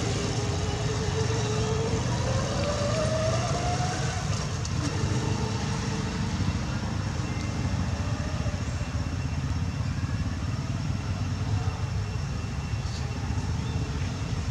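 Steady low background rumble, with a faint tone gliding upward in pitch over the first four seconds.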